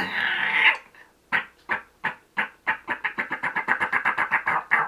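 A man's imitation of a squirrel's alarm chatter. A raspy bark opens it, then a run of short, sharp barks that quicken to about five a second.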